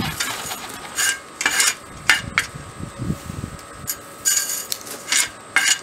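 Small crushed stone (#9 stone) scraped and pushed around by hand on a gravel bed: a series of short gritty scrapes.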